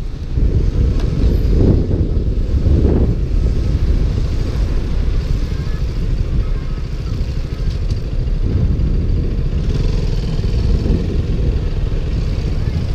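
Wind noise on a GoPro microphone in its waterproof case, rumbling over a KTM Duke motorcycle's engine while riding, with a few louder surges in the first three seconds.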